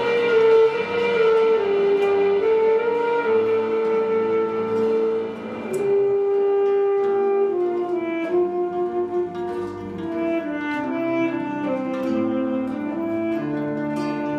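Saxophone playing a slow melody of long held notes over two acoustic guitars. The guitars' quick plucked notes come forward in the second half.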